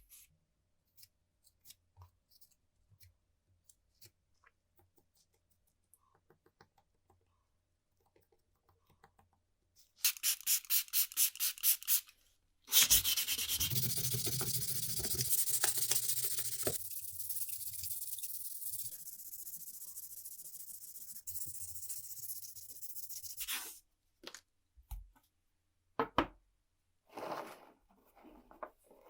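Small handling clicks, then about two seconds of fast back-and-forth sanding strokes, followed by about ten seconds of continuous loud sanding or rubbing, with a few short scrapes near the end.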